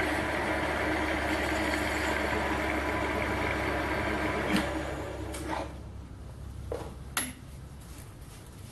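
Small Chinese bench lathe running with its spindle turning but no cut being taken, as the drill is wound back out of the cast aluminium; a little past halfway the lathe is switched off and runs down, with a few sharp clicks of the controls and tools.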